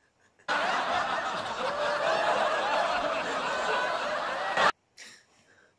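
Canned laugh track: many overlapping voices laughing, starting abruptly about half a second in and cutting off suddenly near the end.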